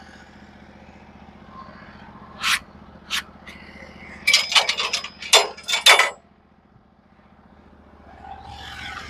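An oak log being turned onto its side on the steel bed of a Norwood HD36v2 portable bandsaw mill. There are two sharp knocks, then a quick run of loud clanks and knocks of wood on steel for about two seconds, some with a short metallic ring. Under it all is a steady low engine hum.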